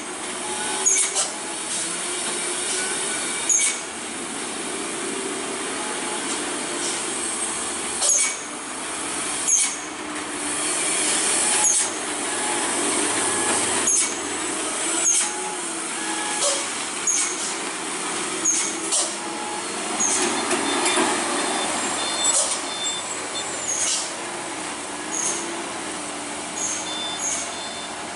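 Heavy diesel cargo trucks laboring around a steep hairpin at low speed: a steady, wavering engine drone with short sharp hisses every second or two.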